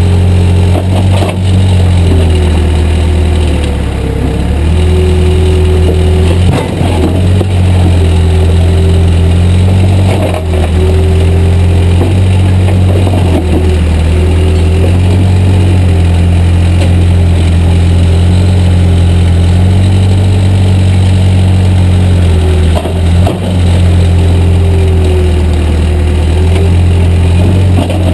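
Backhoe's diesel engine running steadily under load while it digs, with a whine that dips and rises in pitch as the machine works and a few knocks along the way.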